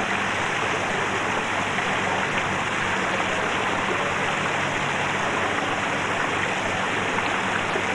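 Pool water spilling over a stone ledge in a row of small falls: a steady splashing rush of falling water.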